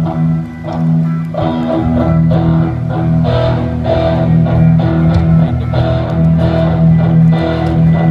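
Guitar chords played with a bass line underneath, as a band sound-checks its instruments.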